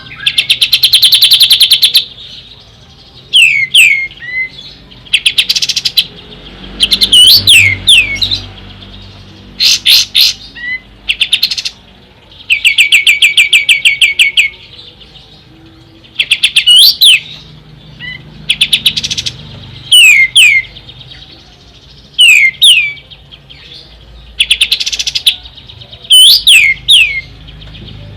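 Kapas tembak songbird calling over and over: rapid rattling trills of one to two seconds alternate with quick, sharply falling whistled notes, a new phrase every second or two.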